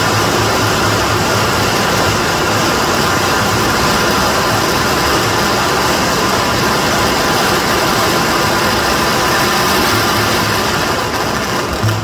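A long run of firecrackers going off on the ground, the rapid bangs so dense that they merge into a continuous loud crackling roar.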